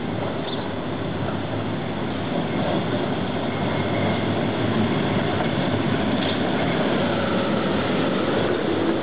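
Two-car Konstal 105N tram rolling past on street track: a steady rumble of wheels on rails that grows louder about two and a half seconds in as the tram draws close, with a faint sliding whine in the second half.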